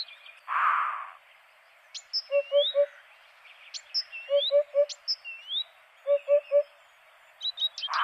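Eurasian hoopoe song: a low, soft three-note 'hoop-hoop-hoop', repeated about three times, with other birds' higher chirps and short rising whistles alongside. A brief rush of noise comes about half a second in.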